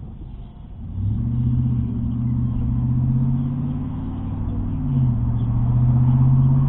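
A car engine accelerating under a low rumble, its note rising about a second in and stepping up again near five seconds.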